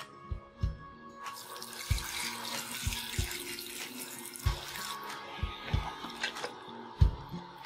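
Tap water running into a plastic tub of raw chicken feet, starting about a second in and stopping about five seconds in. Background music with a steady thumping beat plays throughout.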